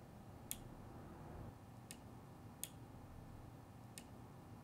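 Four faint clicks, irregularly spaced, from the shuttle inside a Kimray pneumatic liquid level switch as its float is moved by hand. The clicks show the shuttle is installed correctly and moves freely.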